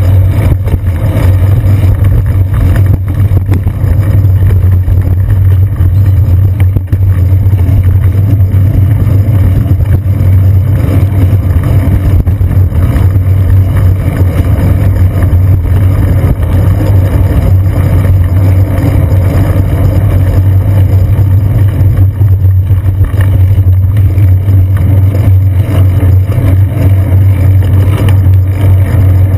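Loud, steady low rumble from a bicycle riding on wet city streets, picked up through a seat-post-mounted GoPro Hero 2, with city traffic passing close by.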